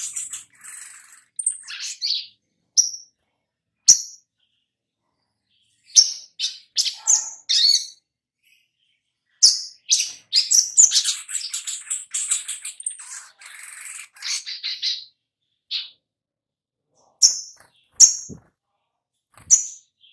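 Caged sunbird calling: sharp, high chirps in quick clusters, broken by a couple of silent gaps of a second or two.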